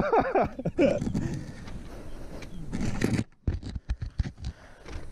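A man's voice for about the first second, then rustling of riding gear and scattered knocks as a fallen dirt-bike rider shifts on the ground to get up.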